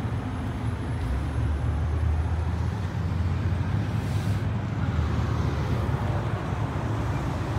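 Jeep Wrangler engine idling: a steady low rumble.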